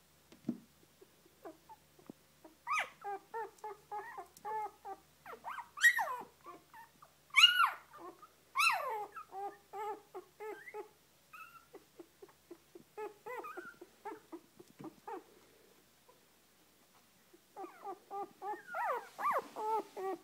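Newborn Shetland sheepdog puppies, in their first week, squeaking and whimpering in quick series of short calls. A few louder squeals fall in pitch between about six and nine seconds in. The calls stop briefly near sixteen seconds and then start again, denser.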